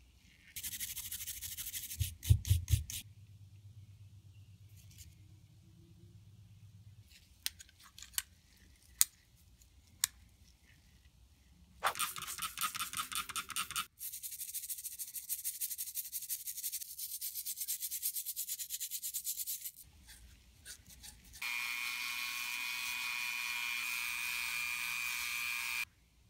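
A few sharp hammer taps on metal at a bench vise about two seconds in, re-peening the pins that hold a nickel silver bolster to a brass liner. Later a small stiff brush scrubs a Delrin knife handle scale in quick strokes, and near the end a rotary tool runs steadily for about four seconds.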